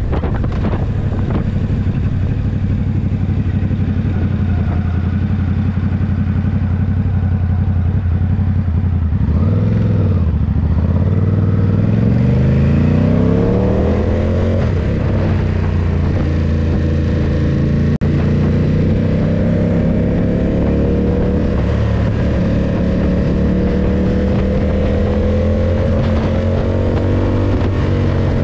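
Ducati SuperSport 939's L-twin engine running at a steady cruise, heard from on board. About ten seconds in the revs dip briefly and come back, then climb steadily for a few seconds and hold at a higher, steady pitch.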